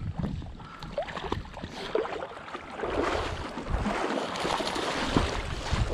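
Water splashing and sloshing as a retriever swims back through flooded marsh grass carrying a duck, with scattered small splashes that thicken into steadier sloshing about halfway through. A low rumble of wind on the microphone sits underneath.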